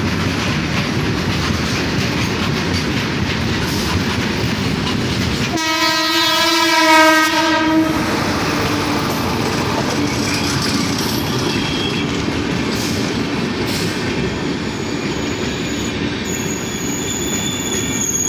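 Steel freight wagons rolling and clattering past on the rails, with an Indian Railways electric locomotive sounding its horn for about two seconds, six seconds in. An electric locomotive and passenger coaches then pass on the adjacent track, and a thin high-pitched wheel squeal comes in near the end.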